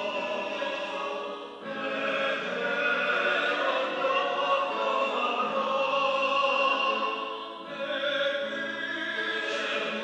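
Mixed church choir of men's and women's voices singing a sacred anthem, with short breaks between phrases about one and a half seconds in and again near seven and a half seconds, and fuller, louder singing in between.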